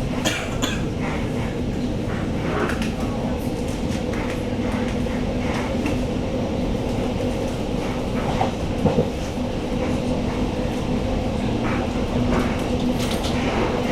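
Z5300 electric multiple unit pulling out of the station: a steady hum with two flat tones, and scattered clacks that fit wheels crossing rail joints.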